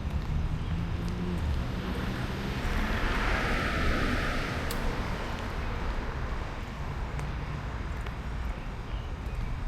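A car drives past: a low engine hum, then tyre noise on the road that swells to a peak about three to four seconds in and fades away.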